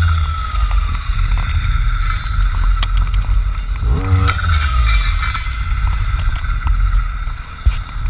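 Two-stroke engine of a Jonsered FC 2256 W clearing saw with a circular saw blade, running steadily; its pitch drops at the start, and the throttle is blipped briefly about four seconds in.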